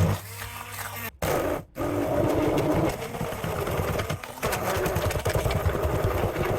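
Hand blender running in a thick mix of frozen fruit, yogurt and ice cubes. It cuts out twice briefly about a second in, then runs steadily.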